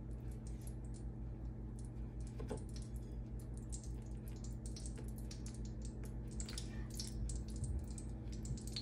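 Faint, irregular small clicks and ticks over a steady low hum.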